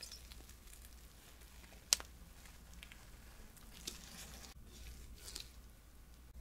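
Freshly fried yeast donut being squeezed and torn in half by gloved hands: soft tearing of the bread and faint crackling of the crust, with one sharp click about two seconds in.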